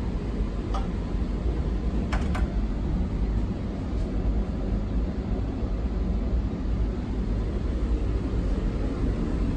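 Steady low rumble of a train standing at the station platform, with a few short clicks, a double one about two seconds in.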